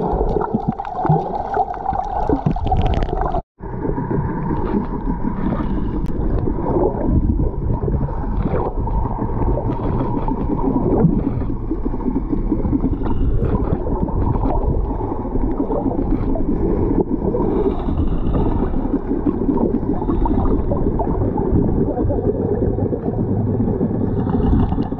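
Muffled underwater rumble and gurgling of water moving around a submerged camera, with scattered crackles of bubbles. The sound cuts out completely for a moment about three and a half seconds in.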